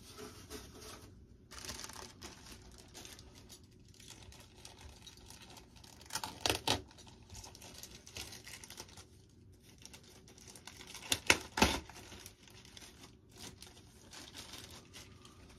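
Plastic packaging bag rustling and crinkling as a foam model-aircraft part is unwrapped by hand, with a few sharp knocks about six and a half seconds in and a louder cluster of them around eleven seconds in.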